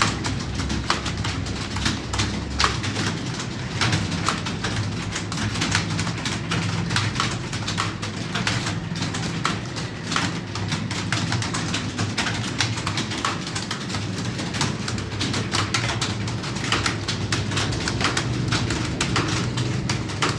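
Computer keyboard being typed on quickly, with irregular keystroke clicks several times a second, over a steady low hum.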